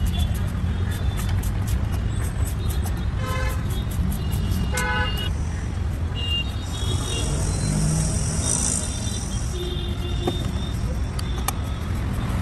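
Street traffic rumbling steadily, with vehicle horns honking briefly twice, about three and five seconds in.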